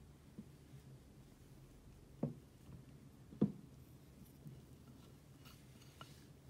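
Knife and fork cutting down through a stack of pancakes onto a plate: two soft knocks about a second apart, with a few faint taps, over a low steady hum.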